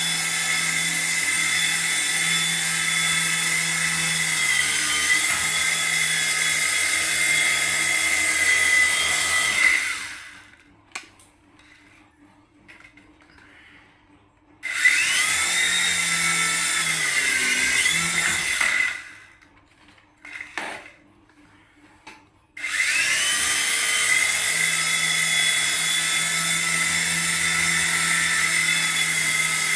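A toy remote-control aircraft's small electric motor whining at a steady high pitch, cutting out twice for a few seconds and spinning back up with a rising whine each time.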